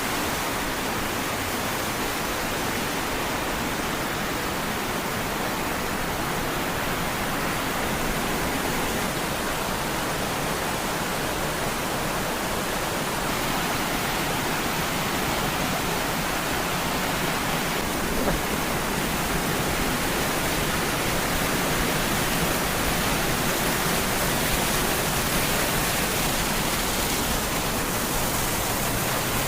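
Loud, steady rush of a cascading waterfall: water crashing down a series of rocky steps in a gorge.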